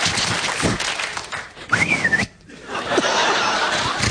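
Studio audience laughing over a man's mouth-made sound effects into a microphone, with one short whistled glide that rises and falls about halfway through and then breaks off sharply.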